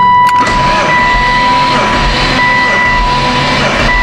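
Background rock music starting abruptly, with a steady high held note over a dense, even band texture.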